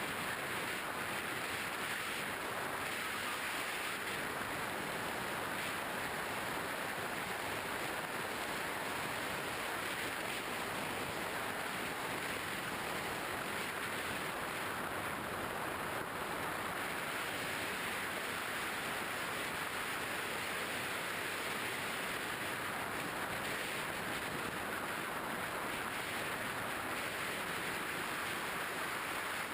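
Steady rushing airflow noise on an onboard camera's microphone aboard a flying model plane, even throughout with no distinct events.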